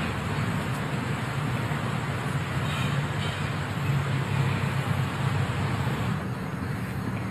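Steady low hum of distant road traffic.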